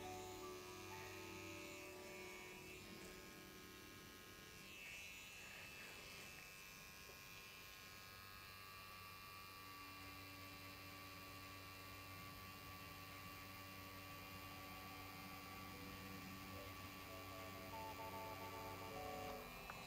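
BRONC Magic wireless rotary tattoo pen running steadily at 7 volts with a 9-round liner, lining into practice silicone. It gives a quiet, even motor hum.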